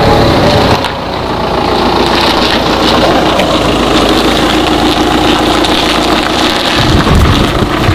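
A motor vehicle engine running at a steady idle: a continuous low rumble with a steady hum, the deepest part shifting about a second in and again near the end.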